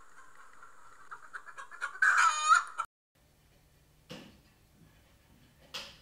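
Chickens clucking, then a rooster crowing loud about two seconds in; the sound cuts off abruptly before three seconds. After it comes a faint low hum with two sharp clicks.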